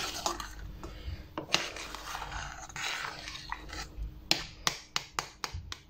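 A metal spoon stirring thick rice pudding in a stainless steel pot, scraping along the bottom and sides. From about four seconds in it turns to a regular run of sharp clicks, about three a second, as the spoon knocks against the pot.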